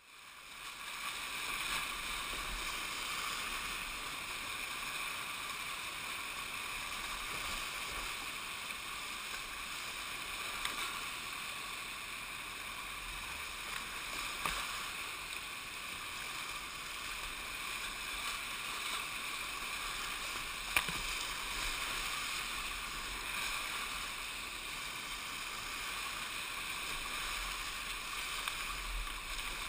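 Rushing whitewater of a shallow, rocky mountain river at low water, heard from a kayak running the rapids: a steady hiss that fades in at the start. A few sharp knocks stand out, the loudest about two-thirds of the way through.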